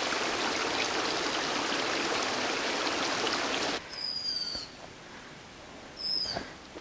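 Shallow rocky stream running over stones in a steady rush of water that cuts off about four seconds in. Then come two short, high, downward-sliding bird calls about two seconds apart.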